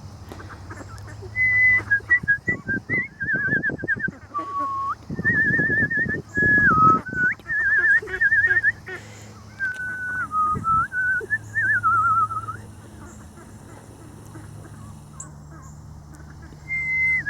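A run of clear whistled notes, some held steady and some warbling quickly, stepping up and down in pitch in short phrases. They break off about two-thirds of the way through and start again at the very end, with a few low rustling thumps around the middle.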